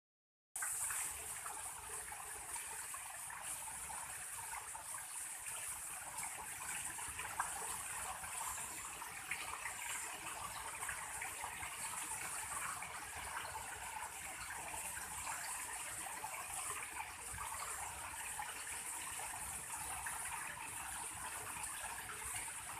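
Water pouring steadily over a man-made waterfall feature and splashing into its pool, starting abruptly about half a second in.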